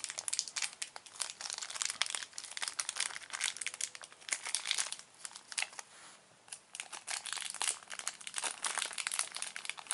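Clear plastic packaging bag crinkling and crackling as it is handled and pulled at to get it open, with a short lull about halfway through.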